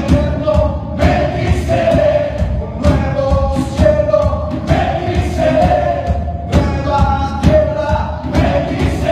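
Choral music: voices holding long sung notes that change pitch every second or so, over a low pulsing beat.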